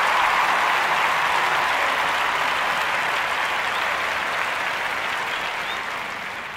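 Baseball stadium crowd applauding, gradually dying away.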